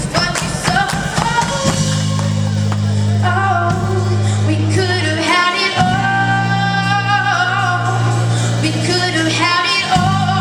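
Band music with a singer holding long notes over steady, sustained low chords.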